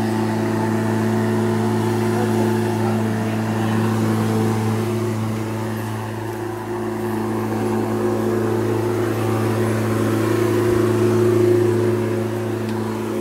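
Corded electric rotary lawn mower running steadily while being pushed across grass: a constant motor hum that dips slightly about halfway through and swells again near the end.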